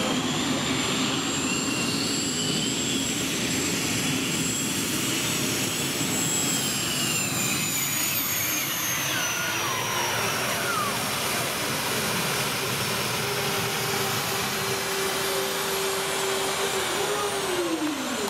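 Modified pulling tractor's engine running under load as it drags the weight-transfer sled, with a high steady whine that slowly falls in pitch from about seven seconds in. Near the end a lower steady tone drops away in pitch.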